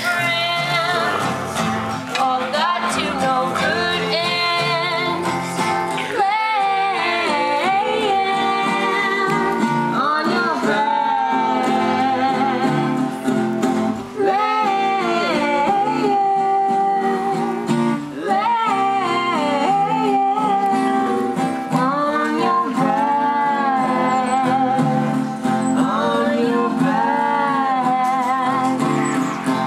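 A song by a small acoustic band: an acoustic guitar strummed under singing voices, continuing without a break.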